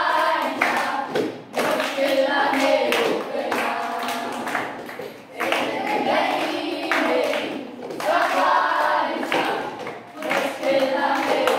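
A group of children singing together in unison, clapping their hands along with the song.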